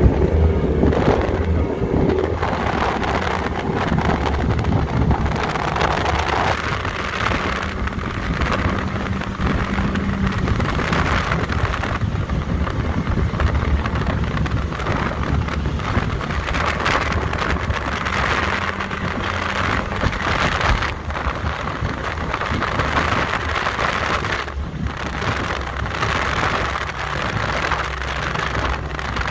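Motorboat running across open water: a steady engine drone under a loud rush of wind on the microphone and water noise.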